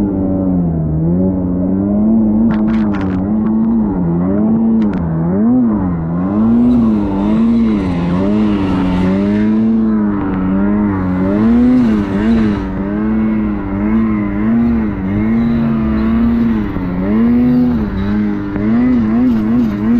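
Ski-Doo Summit X snowmobile's turbocharged two-stroke engine running under load, its pitch rising and falling over and over as the throttle is worked. A rushing hiss of snow spray comes over it twice in the middle, and a few sharp clicks sound about three seconds in.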